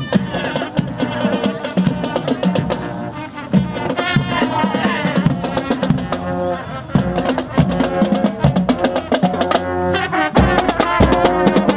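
Marching drum band playing while on parade: brass (trumpets, mellophones and sousaphones) playing a tune over a steady beat of marching snare, tenor and bass drums.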